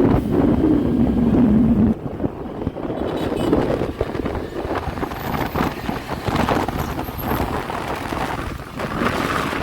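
A road vehicle's engine running, heavy for about the first two seconds and then lighter, with wind buffeting the microphone throughout.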